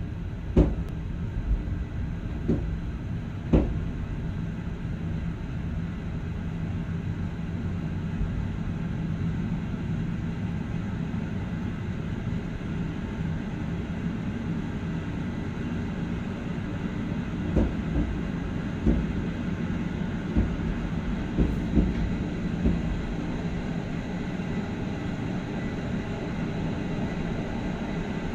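Electric train running along the track, heard from the cab: a steady low rumble with sharp knocks of the wheels over the rails. There are several knocks in the first few seconds and another group about two-thirds of the way through.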